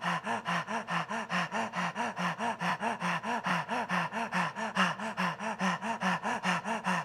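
A man panting rapidly and evenly through his open mouth with his tongue stuck out, about four to five pants a second: the 'dog breath' pranayama of kundalini yoga.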